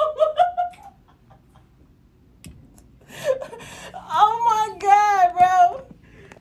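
A woman laughing hard, a run of high-pitched laughing pulses from about three seconds in until near the end, after a short vocal outburst at the very start.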